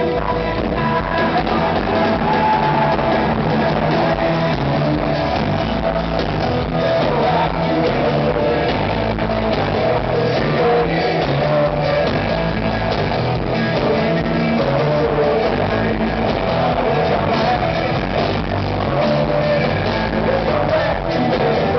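Live rock band playing loud and steady: acoustic guitar, electric bass and drums.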